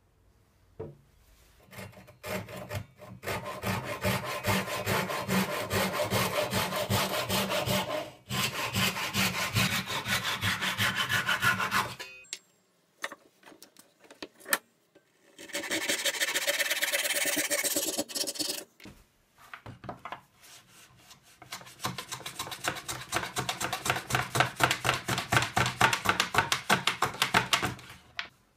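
Hand tools cutting and trimming a small block of birch: three spells of quick, even back-and-forth strokes, broken by pauses about twelve and nineteen seconds in.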